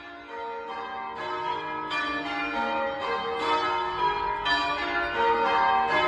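The cathedral's ring of church bells being rung in change-ringing style, one bell striking after another in a steady, overlapping peal. The ringing grows louder over the first few seconds.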